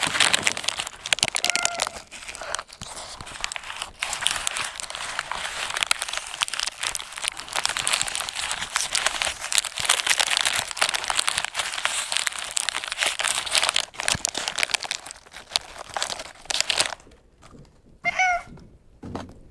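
Paper food wrapper crinkling and rustling in the hands as food is picked out of it, a dense continuous crackle that stops about two seconds before the end.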